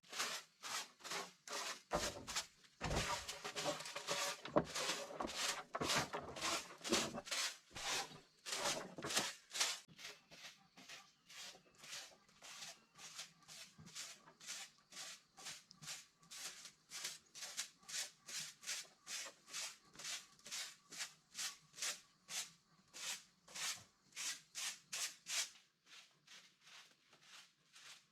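Rhythmic rubbing or scraping strokes, about two to three a second, heavier for the first several seconds and then lighter and even.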